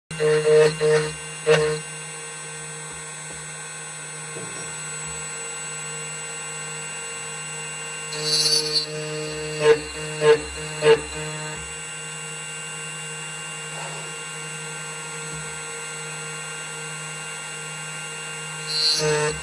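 Tank 2M2 CNC key cutting machine running steadily as it cuts a key blank, with a few louder moments of cutting in the first two seconds and again about eight to eleven seconds in.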